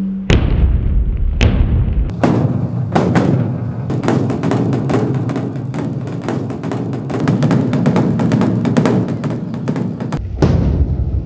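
Drumming: two single beats, then a fast, dense run of strikes for most of the time, ending with a couple more beats near the end.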